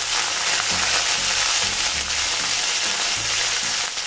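Curry leaves sizzling steadily in hot groundnut oil with mustard seeds and urad dal in a steel kadai: the tempering stage of the dish.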